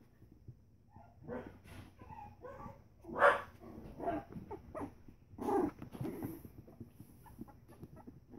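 Three-week-old Pembroke Welsh Corgi puppies yipping and squealing in short, scattered calls as they play. The loudest call comes about three seconds in, and another comes a couple of seconds later.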